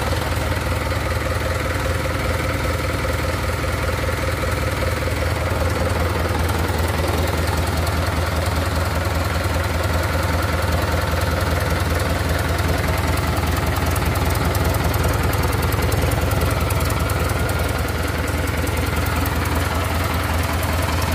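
Mitsubishi PS120 marine diesel engine running steadily at idle, with its gearbox not yet put in gear.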